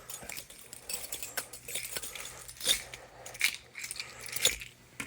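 Scattered light clicks and clinks of small hard objects being handled, irregularly spaced, over a faint steady hum.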